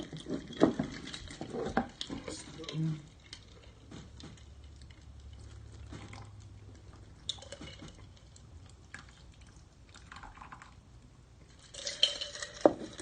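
Scattered clicks and knocks from handling a container of liquid, with small drips and splashes, busiest in the first three seconds and sparse after that.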